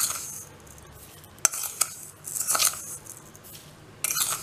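Granulated sugar poured from a small plastic bowl into a steel mixer-grinder jar of chopped carrots: a few short hissing, rattling bursts with sharp clicks, about a second apart, as the bowl is tipped and shaken against the jar.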